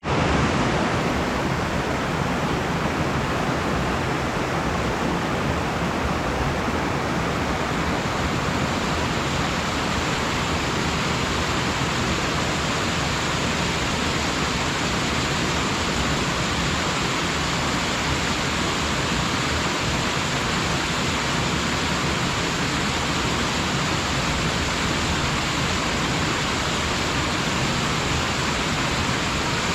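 Waterfall falling steadily: a constant, dense rush of water.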